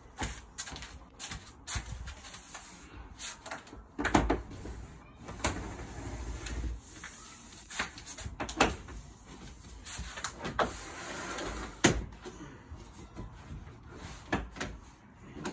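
Irregular knocks, clicks and scraping of plastic shed parts being handled and fitted together, with sharper knocks about 4, 8.5 and 12 seconds in.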